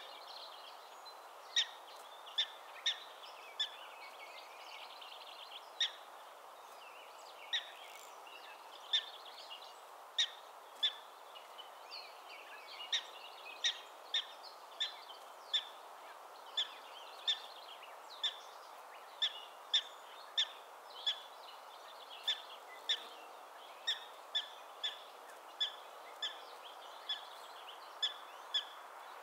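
Black-tailed prairie dog giving a long series of short, sharp alarm calls, about one a second, some in quick pairs, over a steady background hum.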